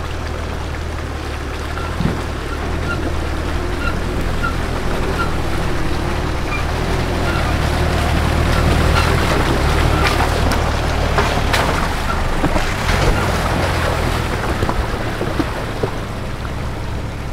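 4x4 engine running low and steady with water rushing and splashing around it, as in a river crossing. Sharp splashes and knocks cluster in the middle.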